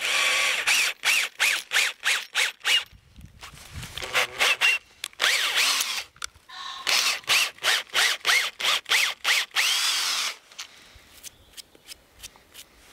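Cordless drill-driver boring a 10 mm hole into a birch trunk, worked in quick trigger pulses so the motor spins up and winds down with each one, then in a few longer runs. It stops about ten seconds in.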